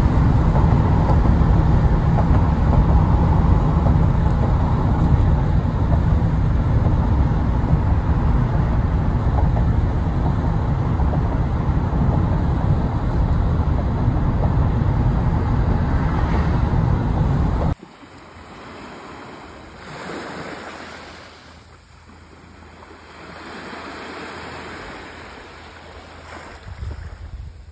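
Heavy wind buffeting the microphone over ocean surf, which cuts off suddenly about eighteen seconds in. After that, quieter waves wash onto the beach, swelling and fading twice.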